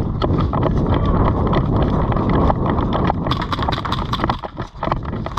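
Heavy wind and handling rumble on a body-worn action camera's microphone. From about three seconds in, a quick run of sharp clicks and knocks joins it.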